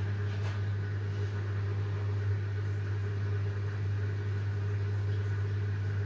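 Samsung QuickDrive EcoBubble washing machine running at the start of a cycle: a steady low hum.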